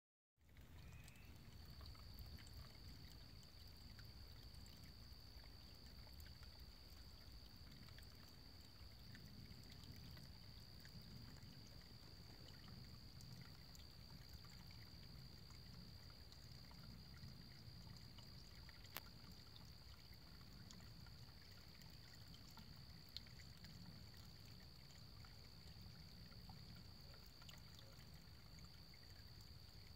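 Near silence: a faint low rumble under a thin, steady high whine, with two small clicks in the second half.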